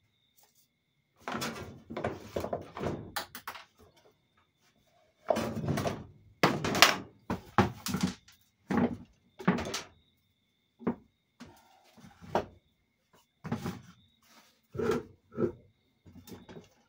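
A string of irregular clanks and knocks, about a dozen, as tools and transmission parts are handled and set down on a workbench during a 4L60E teardown. The loudest comes about seven seconds in.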